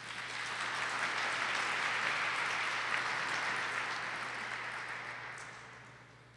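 Audience applauding. The applause builds quickly, holds, then dies away over the last couple of seconds.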